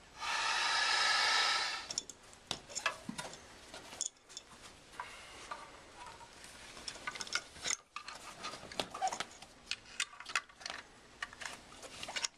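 A loud rush of air for about two seconds as an outrigger pontoon is inflated, followed by scattered clicks and light clatter of parts being handled.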